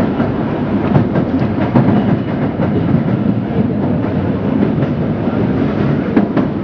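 Sakaisuji Line 66 series subway train heard from inside the car while running through a tunnel: a steady rumble of wheels on rail, with sharp clicks from the wheels passing rail joints about a second in and again near the end.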